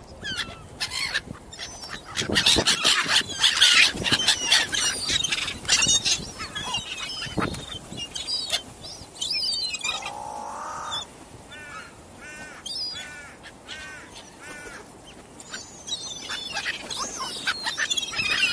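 A flock of gulls and crows calling overhead: many short, overlapping high cries, with one lower, longer call about ten seconds in, growing busier again near the end.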